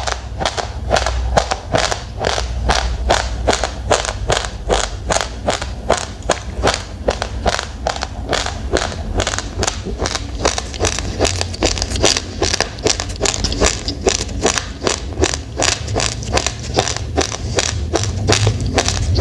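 A person chewing raw, uncooked rice grains: a steady run of crisp crunches, about two to three a second.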